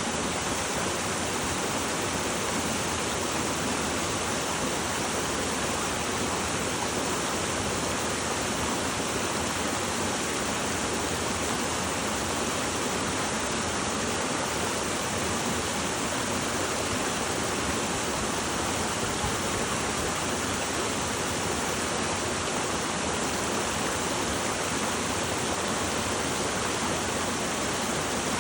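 Running water from a mountain spring, a steady unbroken rush.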